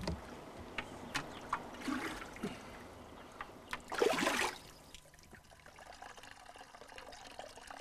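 Water splashing and trickling in small bursts as linden blossoms soaked in water are squeezed by hand to press their oil into the water, with a louder rush of water about four seconds in; after that it is faint.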